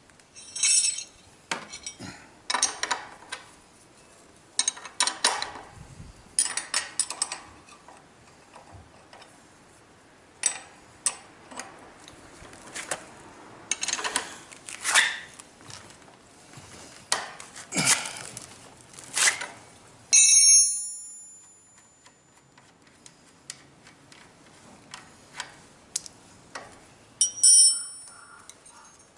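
Metal tools and wheel parts clicking, knocking and clinking irregularly as a scooter's front wheel is taken off, with two brief ringing metal clinks, about two-thirds through and near the end.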